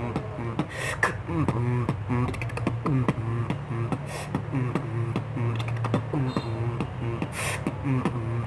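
Beatboxing freestyle: a rapid, unbroken stream of mouth-made kick, snare and hi-hat clicks over a low hummed bass line.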